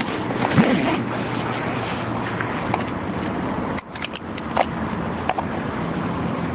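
Steady outdoor rush of road traffic and wind on a handheld camera's microphone, with a few light knocks from the camera being handled.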